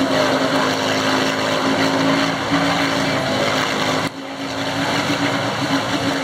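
A lifted ATV's engine running hard at a steady high throttle while its tyres spin and churn through deep, watery mud. The engine tone steps up slightly about two and a half seconds in, and the sound dips briefly about four seconds in.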